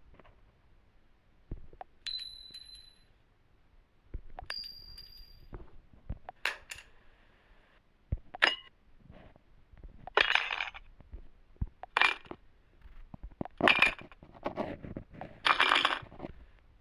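Small metal objects dropped onto a hard surface: first a few light clicks and two short high rings, then a run of clinks and rattles that grows louder and busier toward the end.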